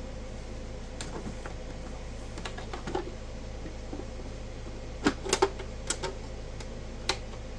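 Scattered light clicks and knocks of metal parts being handled as an HP frequency counter's case and screws are taken apart, with a quick cluster of sharper clicks about five seconds in.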